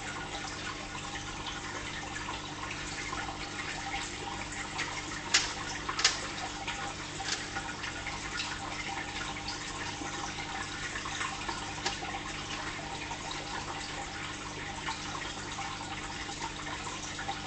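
Fish tank water trickling and dripping steadily over a low steady hum, with two sharp clicks about five and six seconds in.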